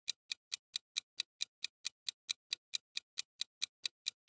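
Countdown-timer ticking sound effect: sharp, evenly spaced clock-like ticks, about four and a half a second, counting down the time left to answer.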